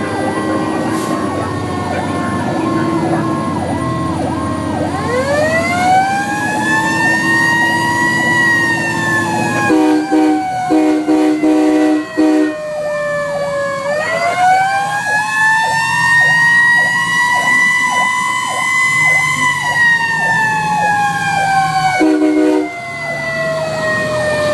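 Fire engine responding: its siren wails, rising and falling slowly, with a second siren tone cycling quickly beneath it. About ten seconds in the train horn blasts three short chords, and once more near the end.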